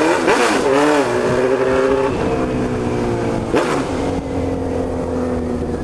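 Honda CB1000's inline-four engine running loud under way, its note sagging as it slows. It gives short throttle blips just after the start and again about three and a half seconds in, over a steady rush of wind.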